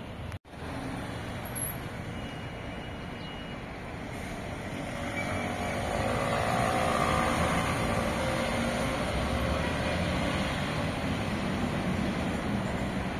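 Street traffic at a city intersection. The sound cuts out for a moment about half a second in. From about five seconds in, a city bus engine close by gets louder as the bus drives across the junction.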